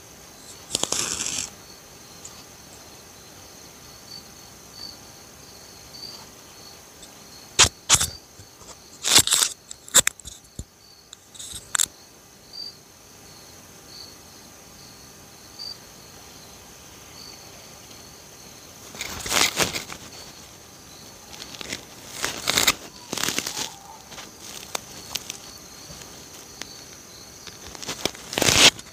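Crickets or similar insects chirping steadily, one high unbroken drone with a chirp that repeats evenly beneath it. Several sudden rustles and knocks come and go over it, the loudest about two-thirds of the way through and again near the end.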